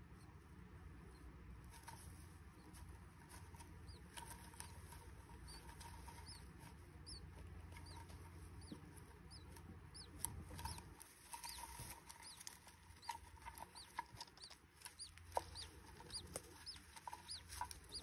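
Faint, short, high chirps from budgerigars in a nest box, repeating about once a second. Soft taps and scratches join in during the second half.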